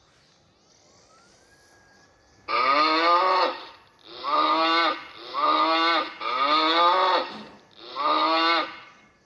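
A cow mooing five times in close succession, each moo about a second long and dropping slightly in pitch.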